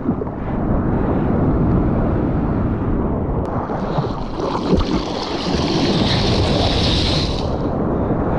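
Sea water sloshing and splashing against a GoPro held at the waterline as a bodyboarder paddles through the surf, with wind buffeting the microphone. A hissing rush of water comes in about halfway through and fades shortly before the end.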